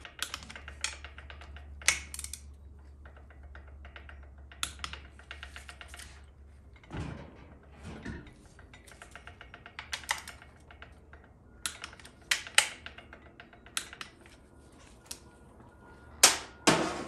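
Click-type torque wrench clicking as the TH400's low-reverse servo cover bolts are torqued to 18 foot-pounds one after another. Later come scattered sharp metallic clicks and a couple of dull knocks.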